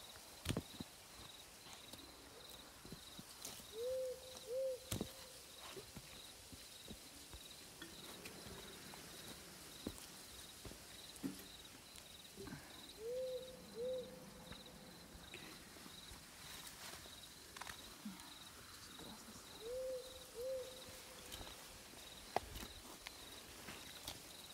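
An owl hooting in pairs of two short notes, three times several seconds apart, over a steady pulsing insect chirp at night. Scattered sharp knocks come from someone climbing a tree.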